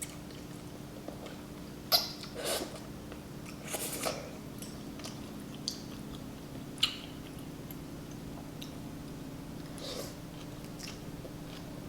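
Close-miked eating of wonton noodle soup: chewing and wet mouth sounds with several short sharp clicks and smacks, over a steady low hum.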